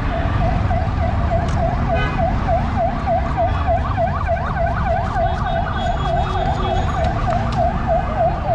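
Electronic siren-like warble: a steady high tone broken by a rapid, repeating up-and-down yelp, about three a second, over a low street rumble.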